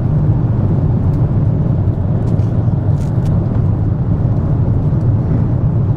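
Steady low drone of a Boeing 777 cabin in cruise, from its engines and the airflow over the fuselage. A few faint clicks, a plastic spoon knocking a cup, sound over it.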